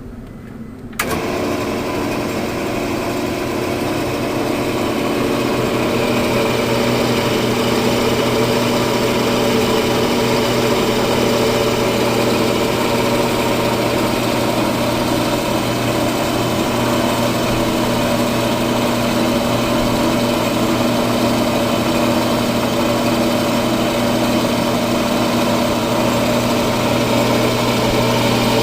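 Ammco brake lathe's electric motor switching on about a second in, then running with a steady hum that builds a little over the next few seconds and then holds.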